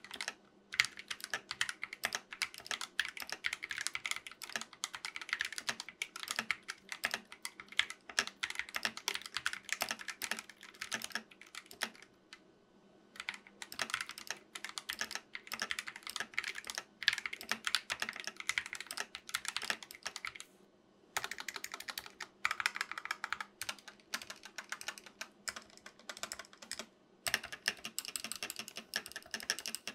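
Fast typing on a compact mechanical keyboard fitted with Gateron optical switches: a dense run of key clacks, broken by short pauses about twelve seconds in, about twenty-one seconds in, and near the end.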